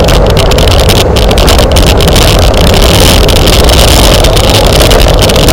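Loud wind buffeting a bicycle-mounted camera's microphone during a road race, a dense low rumble with rapid rattling clicks throughout.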